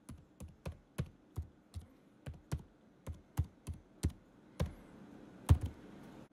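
An irregular series of sharp clicks or taps, each with a short dull thump beneath it, about two a second. The loudest comes about five and a half seconds in.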